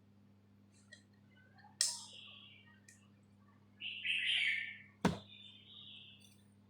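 Short bird chirps, several of them, with a sharp click about five seconds in and another near two seconds, over a steady low electrical hum.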